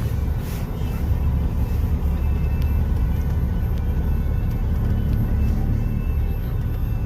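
Jeep Cherokee driving off-road: a steady low engine and drivetrain rumble with road noise.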